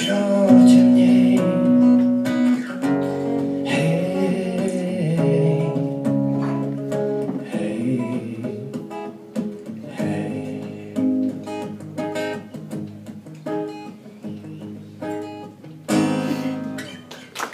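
Acoustic guitar playing the closing bars of a song, chords ringing and then thinning to separate plucked strokes that grow quieter toward the end.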